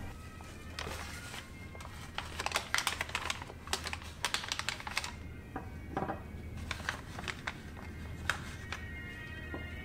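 Gloved hands handling and folding a white sheet, making clusters of quick crinkling and crackling sounds, densest about two to five seconds in. A low steady musical drone runs underneath.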